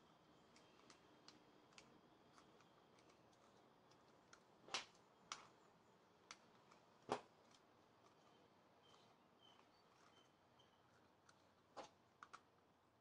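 Near-quiet room with scattered small clicks and taps of plastic toy-robot leg parts being handled and taken apart, the two loudest about five and seven seconds in and a quick cluster near the end.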